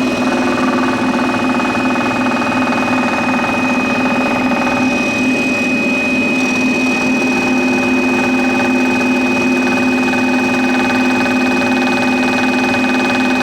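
Scroll saw running steadily, its reciprocating blade cutting through thick 40 mm pine.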